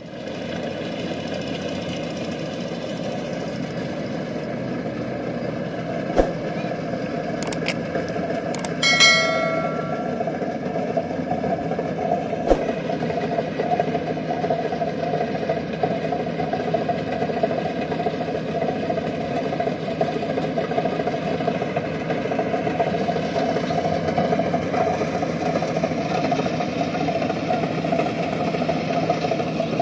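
Rice combine harvester's engine running steadily as the machine cuts through the paddy. A few sharp clicks and one short high-pitched sound come about six to nine seconds in, with another click about twelve seconds in.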